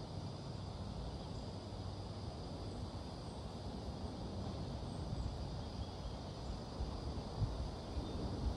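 Hurricane wind gusting and buffeting with a low rumble, in stronger surges near the end, over a steady high-pitched hum.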